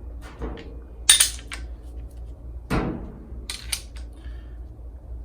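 Metal coilover parts clinking and knocking as a coil spring is fitted over a shock body: a few separate sharp clinks, the loudest about a second in, and a duller knock near the middle.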